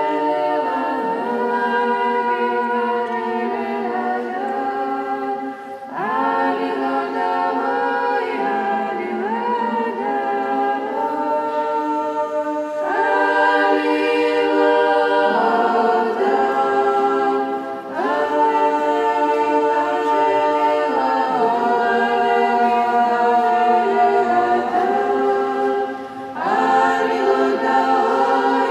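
Women's choir of Georgian Orthodox nuns singing liturgical chant a cappella, several voice parts together in long held chords. The phrases change every five to seven seconds, with brief breaths between them.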